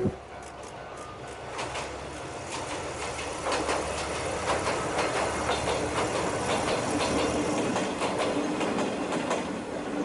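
A two-car Mizuma Railway electric train running along the line, its wheels clicking over the rail joints, with the rush of running noise swelling from about three and a half seconds in.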